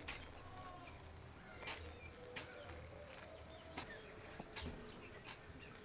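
Faint bird chirps and about six sharp, separate clicks over a steady high-pitched whine, which stops shortly before the end.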